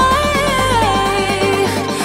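Background music: a pop track with a steady beat and a gliding melody line.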